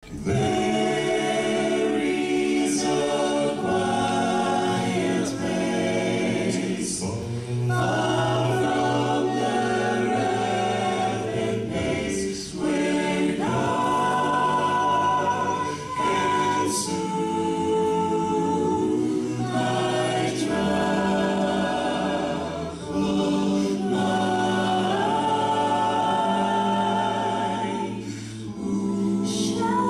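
Mixed vocal ensemble singing a cappella gospel in close harmony, with low bass notes held beneath the chords. The phrases are separated by brief pauses about every four seconds.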